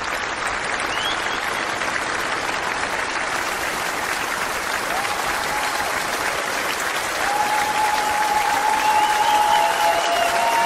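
Steady applause from a crowd, with a few held high tones over it in the second half.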